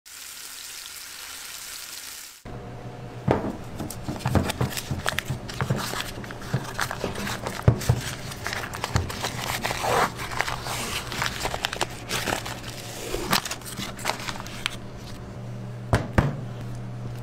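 A brief even sizzle of meat on a hot plate, cut off suddenly about two seconds in, then a cardboard butter carton and its paper liner being torn open and crinkled by gloved hands, with irregular crackles, tears and knocks as the large butter blocks are handled, over a steady low hum.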